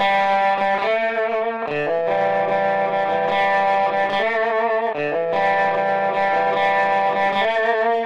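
Rock music: distorted electric guitar playing long held chords, alternating with shorter wavering passages every second or two.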